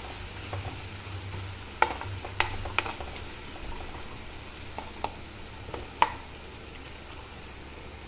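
Onions, green chillies and curry leaves sizzling in oil in a kadai, the tempering stage of a potato fry, while a steel spoon stirs them. A few sharp clicks of the spoon against the pan, the loudest near the end.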